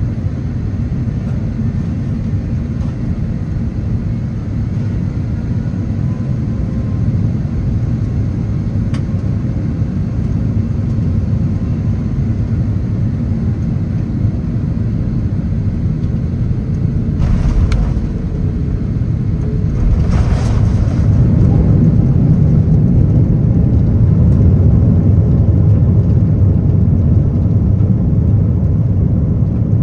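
Cabin rumble of an Airbus A330-900neo airliner on final approach. About 20 seconds in, a short burst of noise marks the touchdown, and the rumble then grows louder as the airliner rolls out on the runway. A shorter burst of noise comes a few seconds before touchdown.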